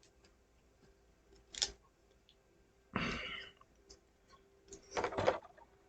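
Small plastic model-kit parts being handled and pressed together: a few scattered clicks and a brief rustle.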